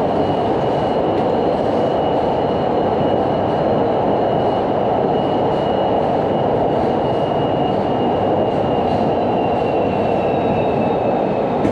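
Cát Linh–Hà Đông metro train running between stations, heard from inside the car: a steady loud rumble with a thin high whine held on one pitch that sags slightly near the end.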